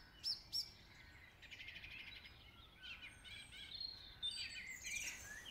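Faint birdsong: two quick high chirps just after the start, then scattered chirps and short trills from about halfway on.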